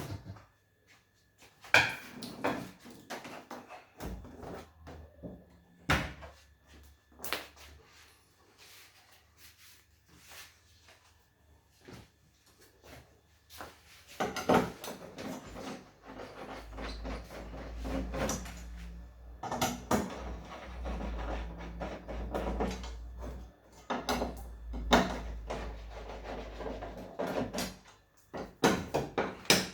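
Irregular clicks, knocks and rattles of plastic and metal parts being handled as an LG LCD TV is taken apart, sparse at first and busier from about halfway, with a low hum under the busier stretch.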